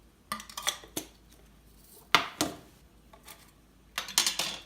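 A measuring spoon clinking and tapping against a dish while seasoning is measured out: a run of light clinks shortly after the start, a sharp strike about two seconds in, and another cluster of clinks near the end.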